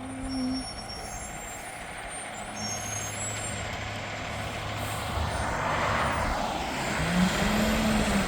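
Heavy truck's diesel engine running steadily, with the road noise of a passing vehicle swelling about five seconds in.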